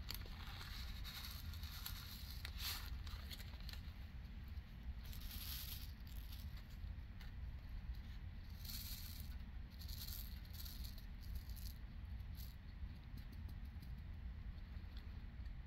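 Small resin diamond-painting drills with an AB (aurora borealis) coating rattling in a plastic sorting tray as it is shaken, in a handful of short gritty bursts.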